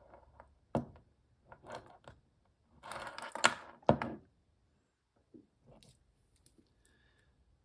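A metal watch bracelet being handled as the watch is put on the wrist: light jingling and clicks. The loudest is a cluster about three seconds in, with two sharp clicks.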